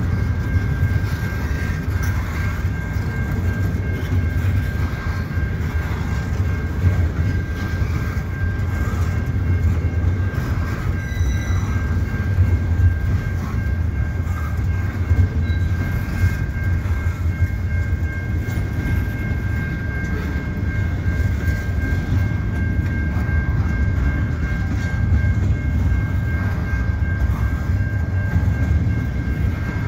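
Double-stack intermodal freight train's well cars rolling slowly past, a steady low rumble of wheels on rail with clicks over the joints and crossing trackwork. Two steady high ringing tones run on above it, typical of the level-crossing bell ringing while the train occupies the crossing.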